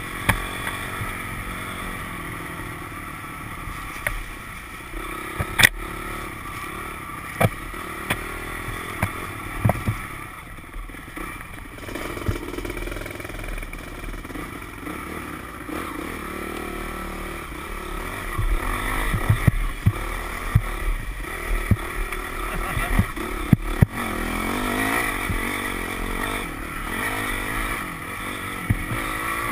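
Dirt bike engine running under load, riding a rough trail, with scattered sharp knocks and rattles as the bike goes over bumps. It gets louder and busier in the second half.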